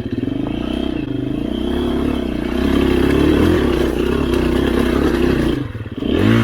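Dual-sport motorcycle engine revving, its pitch rising and falling with the throttle. It drops off briefly near the end, then revs up sharply again.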